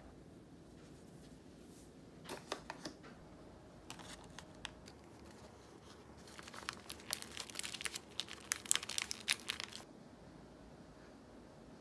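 A sheet of rice paper crackling and crinkling as hands wrap and roll it around a zucchini dumpling filling. There are two short bursts of crackling about two and a half and four seconds in, then a longer, louder run of crackling for about three and a half seconds that stops near the end.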